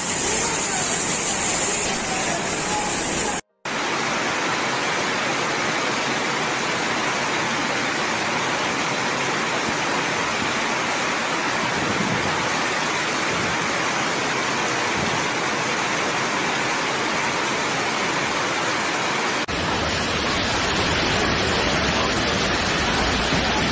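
Floodwater rushing as a steady, even noise, with a brief full dropout about three and a half seconds in; in the last few seconds the noise sits lower, with more rumble.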